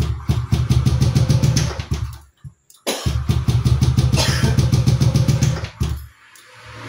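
Fuel-injected motorcycle engine that is hard to start, being forced to keep running: it runs unevenly, dies out about two seconds in, starts again abruptly and runs, then sags almost to a stall near the end before picking up.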